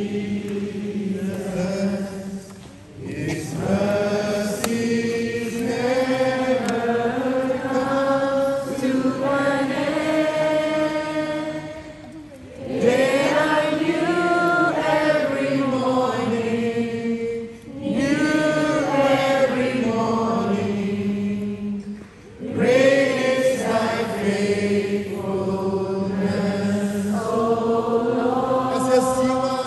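Three men singing a slow worship song together in harmony through the hall's sound system, in long held phrases with short pauses for breath between them.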